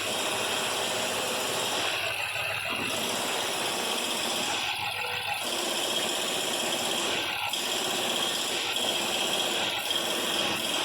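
BMW M5's S63 4.4-litre twin-turbo V8 running steadily with a mechanical rattling clatter.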